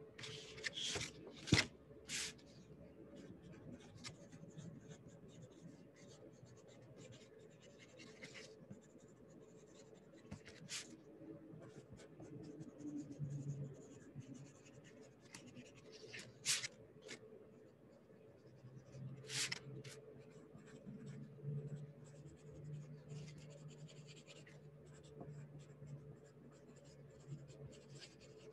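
Handwriting on paper: faint, scattered scratching strokes of a writing tool. There are a few sharper, louder clicks in the first couple of seconds.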